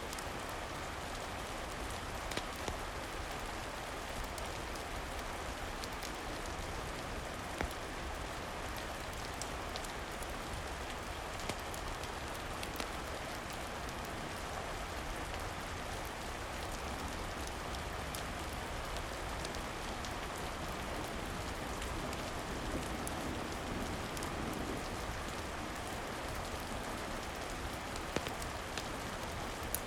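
Steady rain, with scattered sharp clicks.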